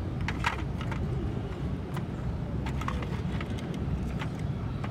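Short dry wooden sticks clattering and knocking against each other as they are set by hand into a small toy trailer bed, a few sharp knocks at a time, over a steady low background rumble.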